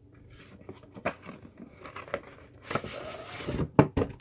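Hands handling a watch's cardboard packaging: scattered rustling and small clicks, with a longer crinkling rustle about three seconds in and a sharp tap just after.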